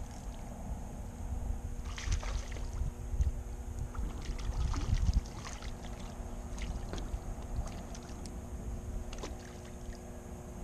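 Wind rumbling on the microphone over lapping water, with a burst of splashing and short clicks about two seconds in and more scattered through the middle, as a hooked fish thrashes at the surface while it is reeled in. A faint steady hum underneath.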